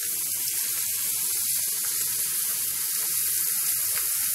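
Raw potato slices deep-frying in very hot oil in a wok, a steady sizzling hiss as more slices are slipped in one by one.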